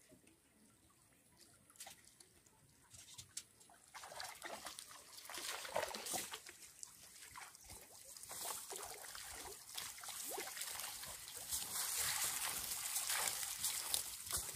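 Water dripping and trickling from a raised fishing lift net onto the water below: quiet at first, then many small drips from about four seconds in, growing denser toward the end.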